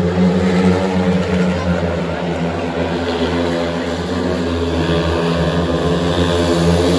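Several speedway motorcycles, each with a 500 cc single-cylinder methanol engine, racing around the track: a steady, loud engine drone whose pitch wavers as the riders work the throttle through the bend.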